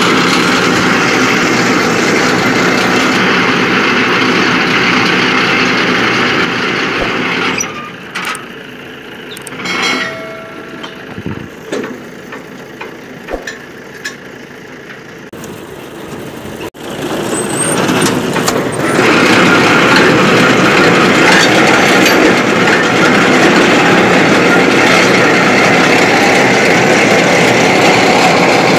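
Steady, loud engine-like mechanical running noise. It drops away for about ten seconds in the middle, leaving a few separate knocks, then comes back just as loud.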